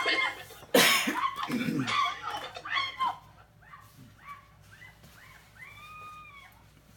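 A person's loud cry about a second in, falling in pitch, followed by fainter drawn-out wailing sounds that rise and fall.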